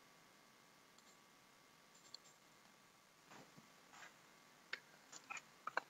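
Near silence: room tone with a few faint, scattered small clicks, more of them in the last couple of seconds.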